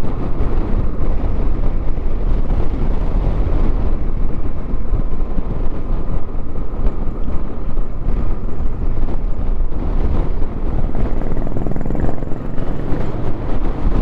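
Steady low noise of a vehicle travelling on the road: engine running and road and wind noise together, unchanging throughout.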